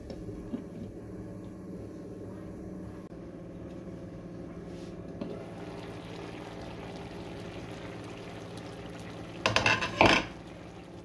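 A steady low hum, then near the end a brief loud clatter of a steel ladle knocking and scraping against the pan as the chutney is stirred.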